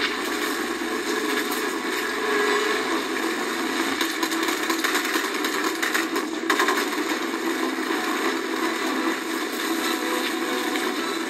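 Action-film gunfight soundtrack played through a television speaker: dense, continuous gunfire and crashing effects, heard thin and tinny with almost no bass.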